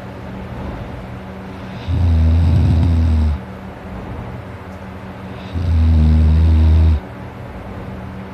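A person snoring heavily in sleep: two deep, rattling snores, each about a second and a half long, about four seconds apart, with a steady low hum between them.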